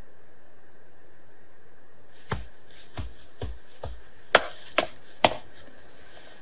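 Hard-soled footsteps: about seven sharp steps at walking pace, starting about two seconds in, over a faint steady room hum.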